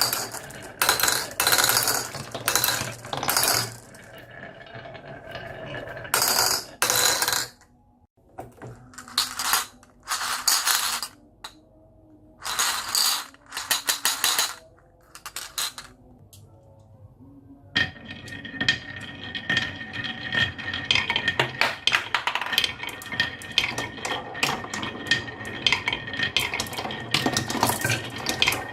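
Marbles clattering and rolling down a wooden HABA slope marble run, in separate bursts of clicking with short gaps. About two-thirds of the way in, a dense, continuous rattle of many marbles clacking together takes over.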